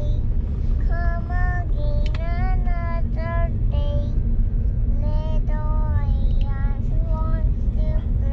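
A young child singing a tune in short, high held notes, over the steady low rumble of a car's road noise inside the cabin.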